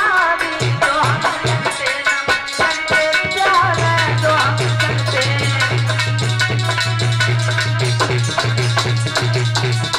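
A male voice singing a Hindi folk-style song over drumming and a rattle. The voice stops about four seconds in, and the accompaniment carries on with regular drum strokes over a steady low tone.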